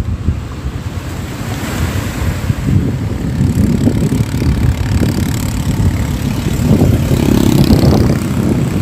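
Wind buffeting the microphone in a gusty low rumble, with small waves washing over shoreline rocks as a lighter hiss that swells now and then.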